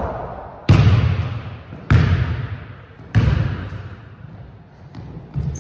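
Basketball bouncing on a hardwood gym floor: three slow bounces about a second and a quarter apart, each echoing on in the large gym, then a fainter thud near the end.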